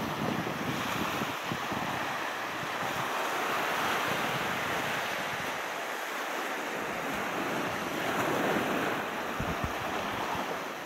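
Sea surf washing on a beach, swelling and easing about twice, with wind buffeting the microphone now and then.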